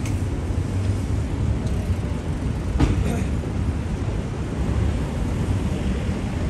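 City street ambience: a steady low rumble of traffic, with a single sharp knock about three seconds in.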